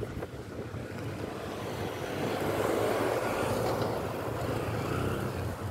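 Road traffic noise from moving vehicles: a steady low rumble with a noisy swell that builds about two seconds in, peaks around three seconds and eases off, as of a vehicle passing.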